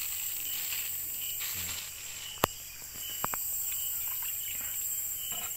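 Night insects such as crickets chirping steadily in a high, even drone, with a sharp click about two and a half seconds in and a softer one shortly after.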